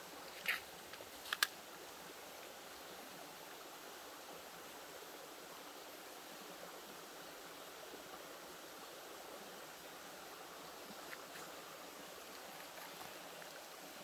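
Creek water running steadily, with a few short sharp clicks, the loudest sounds, about half a second and a second and a half in.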